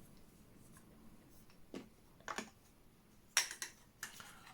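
A few light clicks and taps of small 3D-printed plastic parts being handled, the loudest a quick pair of clicks about three and a half seconds in.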